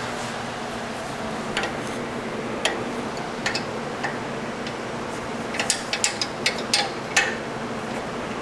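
Irregular sharp metallic clicks and clinks of hand tools on the nut and bolt of a motorcycle's rear brake arm, coming quicker in a cluster near the end, over a steady background hum.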